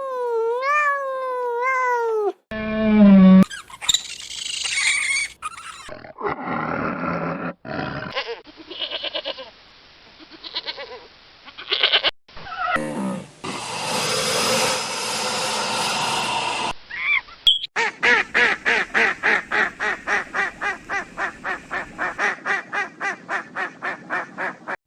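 A series of different animal calls, cut abruptly one after another: a wavering pitched call at the start, several other calls in the middle, and a rapid, evenly pulsing call lasting several seconds near the end.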